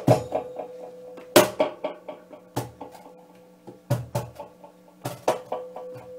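Hand percussion on a cajón and snare drum: sparse, sharp strikes about a second apart, some with a deep thump, with quieter taps in between.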